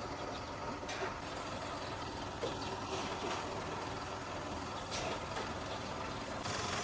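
Diesel engine idling steadily, with a few faint clicks. This is plausibly the rebuilt Toyota 1KD-FTV 3.0 L four-cylinder turbodiesel on its first run.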